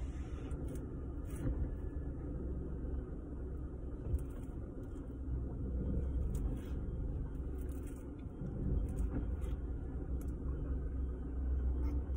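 Car engine running, heard from inside the cabin as a steady low rumble, with a light knock about four seconds in.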